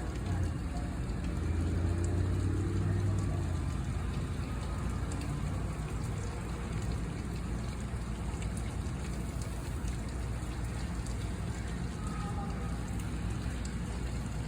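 Steady rain falling, with a low rumble about two seconds in.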